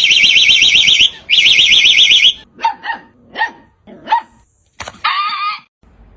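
Two bursts of a high, fast-warbling electronic alarm tone, then a dog giving four short barks and one longer, wavering howl near the end.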